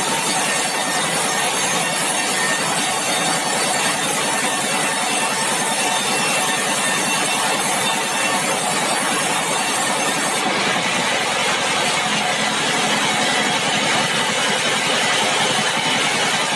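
Sawmill machinery running with a loud, steady noise. About ten seconds in, the highest hiss drops away and the sound becomes more like a running engine.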